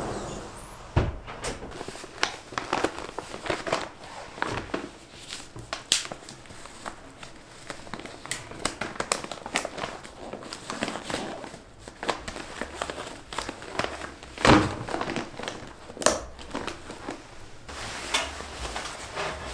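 Plastic kimchi-making mat crinkling and rustling as it is folded up and tied, with many small crackles and a few louder handling knocks, the loudest about two thirds of the way through.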